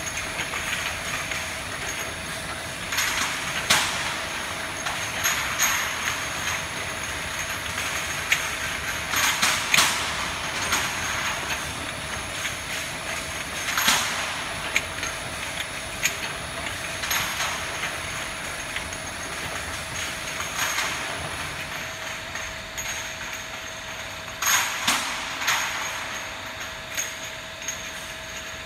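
Vertical rotary glass-bottle washing machine running: a steady mechanical hum and hiss with a constant tone, broken by irregular sharp clinks and knocks, a dozen or so, including a cluster about three-quarters of the way through.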